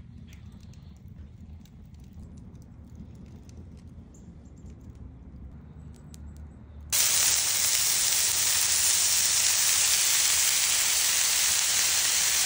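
A faint low rumble for the first several seconds, then, about seven seconds in, a sudden loud, steady sizzle of raw beef burger patties searing on the hot steel cooktop of a wood-fired griddle grill.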